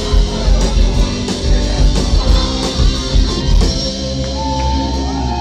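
Live rock band playing the end of a song on electric guitar and drum kit. The drum hits stop about three and a half seconds in and the last chord rings out.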